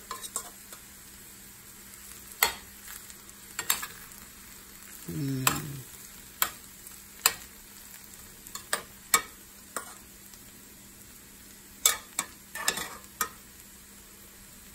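Spoon stirring quinoa in a stainless steel sauté pan over a faint sizzle, with about a dozen sharp scrapes and clicks of the spoon against the pan, the strokes most frequent from about two seconds in and again near the end.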